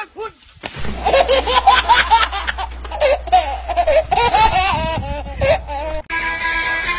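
Loud high-pitched laughter in quick giggling pulses, starting about a second in and cutting off abruptly near the end, where guitar music takes over.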